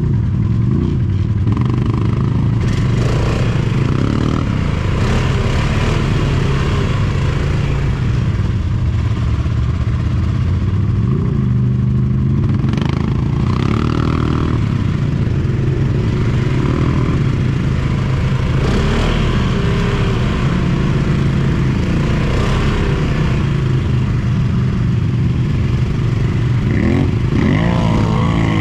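Quad bike (ATV) engine running off-road, its pitch rising and falling with the throttle, with a few knocks along the way and a sharper rev near the end.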